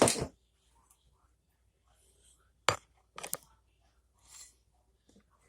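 A few sharp clicks and knocks: one right at the start, two more about two and three seconds later, then a short soft hiss.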